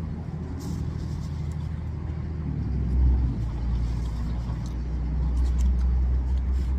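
Steady low engine hum that grows louder about three seconds in and stays up.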